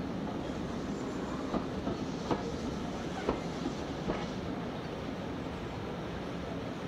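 Heritage railway train running along the track: a steady rumble with a few sharp, irregularly spaced clicks as the wheels cross rail joints.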